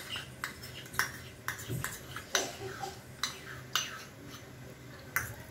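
Metal spoon clinking against stainless-steel bowls in a string of separate sharp taps, irregularly spaced, as a red chilli paste is scooped out and added to batter.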